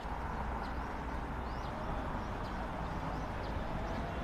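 Outdoor urban background: a steady low hum like distant traffic, with a few faint bird chirps.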